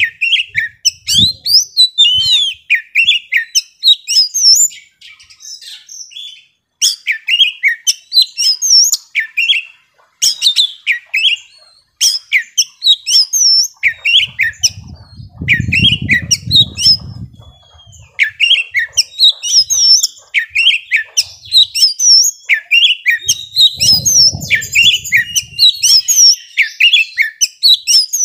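A young oriental magpie-robin sings non-stop in a fast, varied run of chirps and whistled phrases, broken only by short pauses. Two stretches of low rumble sit under the song, one around the middle and one about three-quarters through.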